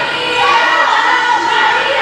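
Many high girls' voices calling and shouting over one another in a gym during a volleyball rally, with no ball strike heard.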